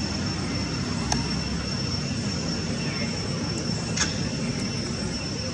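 Steady rumbling background noise with a constant thin, high-pitched whine running over it; a sharp click about a second in and another about four seconds in.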